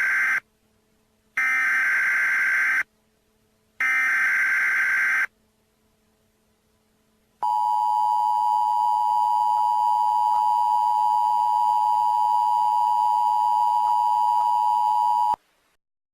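Emergency Alert System tornado-warning tones. First the end of one SAME digital header burst, then two more bursts of data tone, each about a second and a half long with short gaps. After about two seconds of silence comes the steady two-note EAS attention tone, held for about eight seconds and cutting off suddenly.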